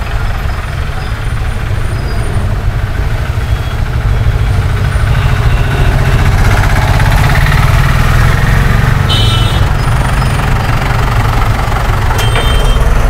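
Steady low engine rumble with road noise, growing louder about four seconds in, with brief high-pitched tones about nine seconds in and again near the end.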